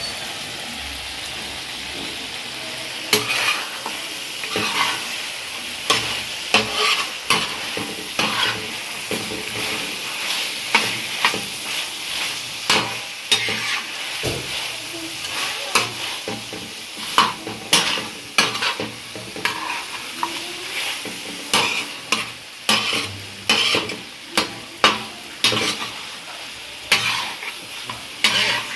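Mutton chops in masala sizzling in oil on a large tawa, stirred with a metal spoon. From about three seconds in, the spoon repeatedly scrapes and clacks against the pan, roughly once or twice a second, over the steady frying hiss.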